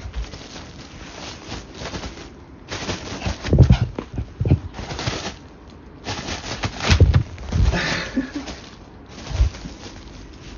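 Toy poodle dashing and scrambling about in a burst of energy after a bath: irregular rustling and scrabbling with a few louder thumps.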